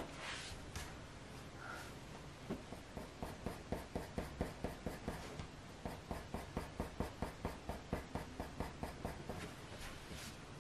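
Faber-Castell Polychromos coloured pencil scratching across paper in quick short strokes, about four a second, laid down lightly to blend and soften the shading. The strokes stop shortly before the end.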